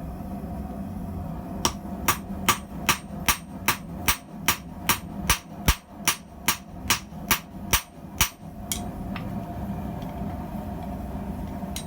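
A blacksmith's hand hammer striking steel on an anvil in a steady run of about seventeen ringing blows, some two and a half a second, forging tongs. The blows start about two seconds in and stop after about eight seconds.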